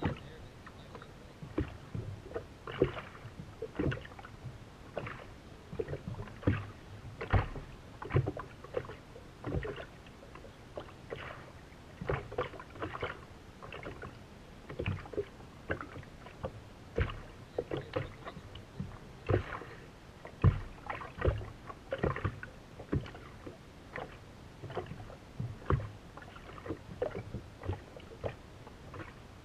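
Small waves slapping and knocking against the hull of a racing boat sitting on the water, in irregular hits one or two a second.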